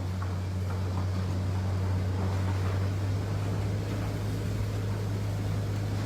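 Vehicle engine running with a steady low drone under an even rushing noise of tyres and water, driving along a flooded road.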